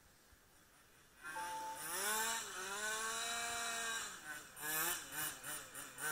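A quarter-scale RC Formula 1 car's small engine revs hard as it passes close, starting about a second in. Its pitch rises and falls, then it gives several short bursts of throttle in quick succession.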